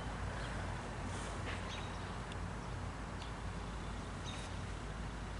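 Quiet outdoor background: a steady low hum with a faint hiss, and a few brief, faint high chirps scattered through it.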